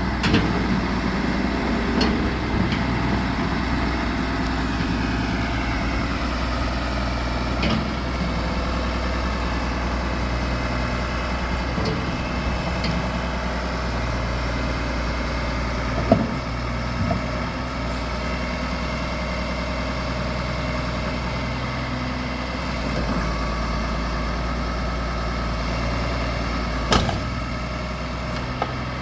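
John Deere 710D loader backhoe's diesel engine running steadily, with a few sharp knocks, the loudest about halfway through and again near the end.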